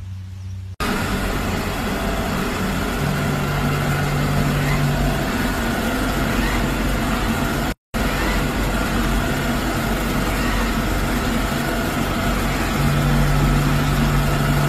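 Robot vacuum cleaner running with a loud, steady whirring noise and low hum, starting about a second in. The sound cuts out for an instant near the middle, then carries on.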